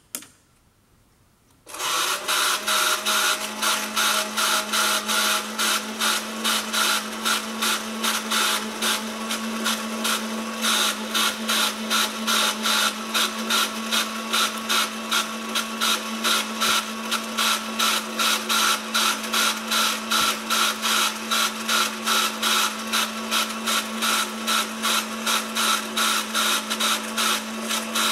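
Model railway turntable drive mechanism running as the deck turns: a small motor and its gearing whirr with a steady hum and a regular pulse of about two or three beats a second, starting about two seconds in.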